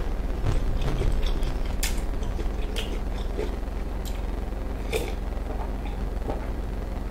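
A person taking long drinks from a mug: scattered soft gulps and wet mouth clicks, the clearest about two and five seconds in.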